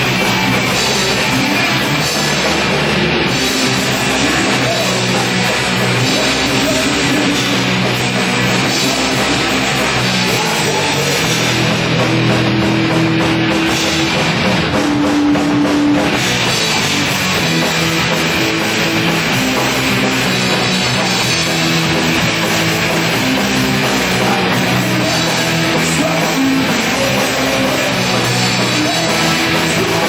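Live rock band playing loudly, with guitars and a drum kit in a heavy, punk-edged style. About halfway through, a couple of long notes are held over the drums.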